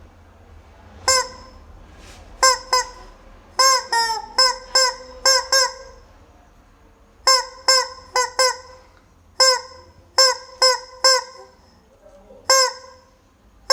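Rubber chicken toy squeezed over and over, giving short, high squawks: about nineteen in irregular groups, some single and some in quick runs of three to five.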